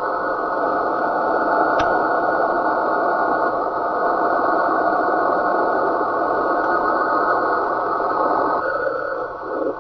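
Radio receiver audio: a steady rushing noise held to a narrow band of pitch, with one brief click about two seconds in and a short drop in level near the end.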